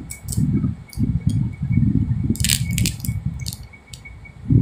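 A bundle of new Indian one-rupee banknotes being leafed through note by note, with irregular sharp paper flicks and snaps over low rubbing and handling sounds.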